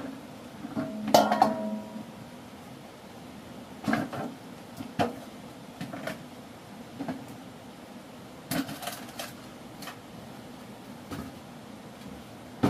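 Scattered knocks and clatters of hard objects being handled, about ten in all at irregular intervals. The loudest comes about a second in and rings briefly.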